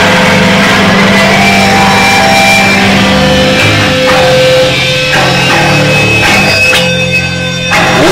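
A live punk-metal band playing loud, distorted electric guitars over drums, the held chords changing several times.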